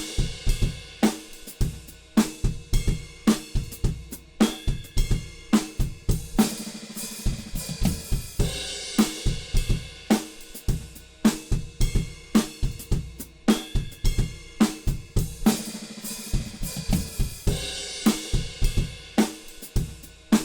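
Instrumental background music carried by a drum kit: a steady beat of kick drum, snare and hi-hat cymbals.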